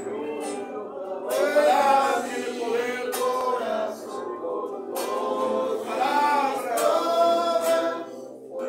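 Church congregation singing a worship song together, several voices in sustained sung lines.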